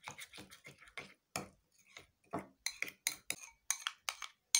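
Metal spoon stirring a thick paste in a glass bowl, clinking and scraping against the glass in a quick, uneven run of clicks, several a second.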